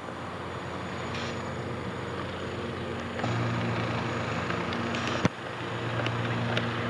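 Steady low hum over even outdoor background noise, stepping louder about three seconds in, with one sharp click about five seconds in.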